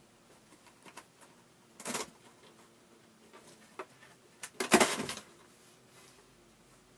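A cat climbing into a cardboard box: the cardboard rustles and scrapes in two short bursts, about two seconds in and a louder one around five seconds in, with a few light taps in between.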